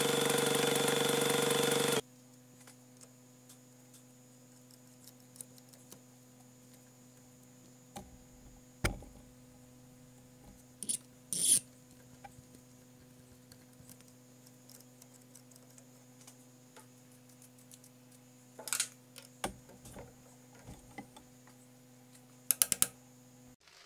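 Milling machine cutting a metal bar with an end mill, a steady pitched cutting sound that stops abruptly about two seconds in. After that comes a faint steady hum with a few scattered light metallic clicks and knocks, the loudest about a third and near the end.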